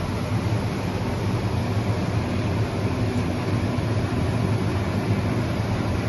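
TIG welding arc on stainless steel from a WELDMAN TIG 400IJ plus welder: a steady hiss with a low hum underneath, unbroken throughout.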